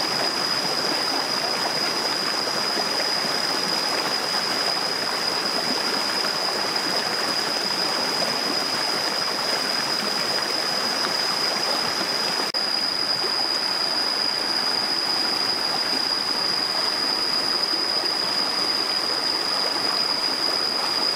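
A shallow rocky stream runs over stones with a steady rush of water. A constant high-pitched whine sits above it.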